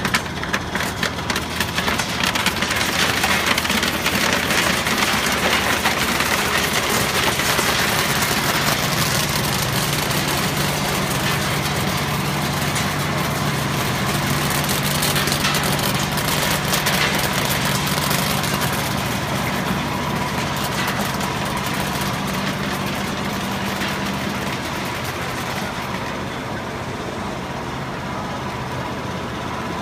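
Cashew colour sorter running: a dense rattling clatter of cashew kernels sliding down the chute and pouring into the bin, over a steady machine hum. The clatter thins out near the end.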